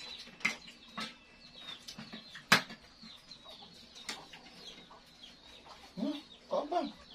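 Chickens clucking close by, with spoons and forks clinking on plates; a sharp clink about two and a half seconds in, and a couple of louder clucks near the end.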